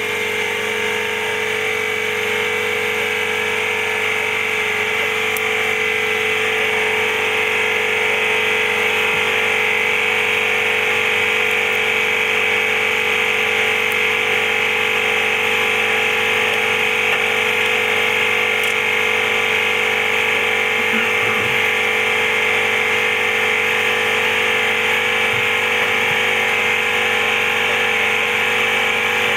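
A small electric motor-driven tool running steadily at constant speed, a continuous whir with a steady high whine over a lower hum.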